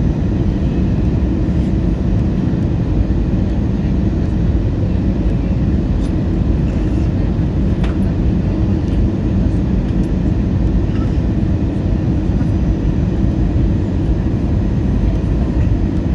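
Steady low rumble of an Airbus A320's jet engines and the rush of air along the fuselage, heard inside the passenger cabin on final approach.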